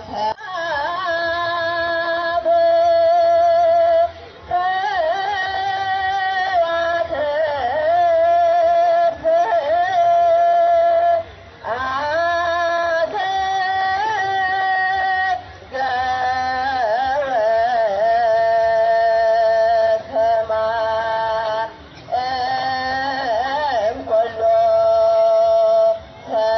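Ethiopian Orthodox hymn singing: long held notes that waver and bend, in phrases of one to several seconds with short breaks between them.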